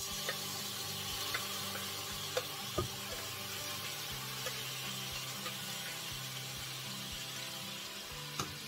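Marinated beef chunks sizzling in a hot frying pan, the hiss starting suddenly as the meat is tipped in from a glass bowl. A few sharp clicks of the bowl and meat against the pan.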